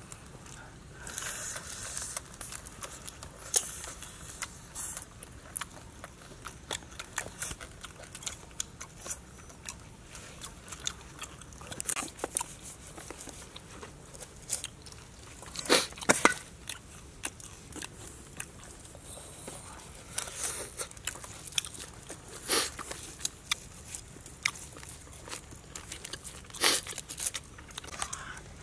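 Close-up crunching and chewing of crisp roast pig skin and meat, with crackling as the skin is cut and torn off the carcass. Irregular short crackles throughout, with a few louder crunches in the middle and later part.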